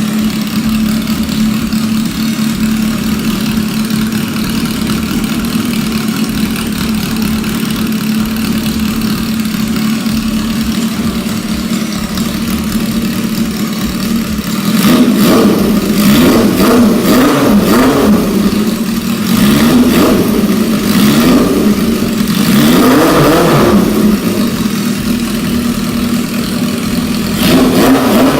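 1978 Honda CB550's air-cooled inline four idling steadily, then revved with a series of throttle blips in the second half, the revs rising and falling each time.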